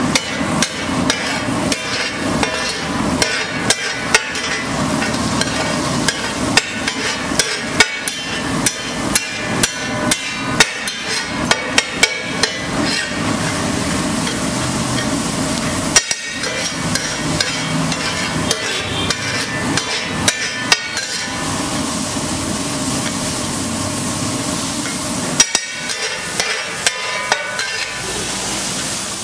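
Steel spatula striking and scraping a large flat iron tava griddle in a rapid, irregular clatter as rice and chopped vegetables are chopped and mixed for tava pulao. A steady hiss of frying runs underneath.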